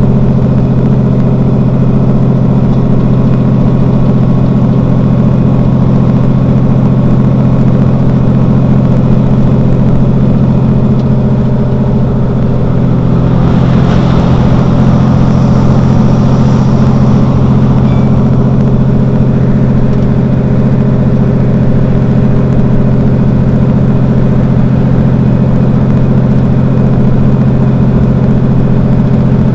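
Mercedes-Benz Citaro city bus's diesel engine idling steadily while the bus stands at a stop. A rushing noise swells and fades about halfway through.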